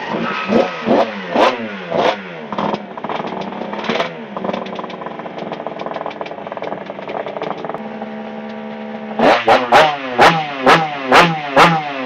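Race motorcycle engine running after a roller start, blipped several times with the pitch falling back after each rev. It settles to a steady idle in the middle, then gets a quick run of about seven sharp revs near the end.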